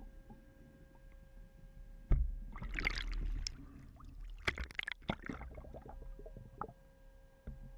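Water splashing and sloshing at the surface, opening with a sudden thump about two seconds in and tailing off into scattered smaller splashes. Underneath is a low underwater rumble and a faint steady hum.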